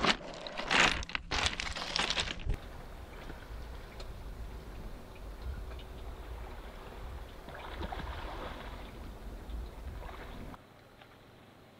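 Pebbles crunching and clattering for the first two seconds or so. Then small waves wash on a pebble beach over a steady low wind rumble, with one wave coming in a little louder near the end.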